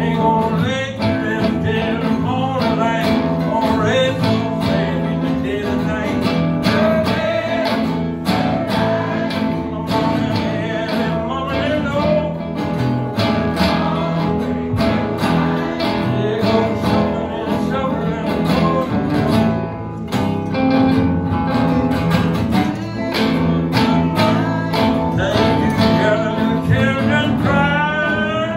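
Live blues music led by guitar, with singing at times.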